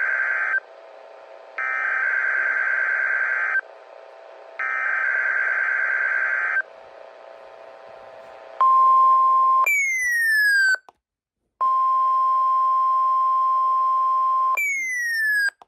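NOAA Weather Radio weekly test signals: the raspy, buzzy digital bursts of the Emergency Alert System (SAME) header, sent three times with short gaps between them. These are followed by the steady 1050 Hz warning alarm tone, which twice gives way to a falling whine and a brief dropout before it resumes.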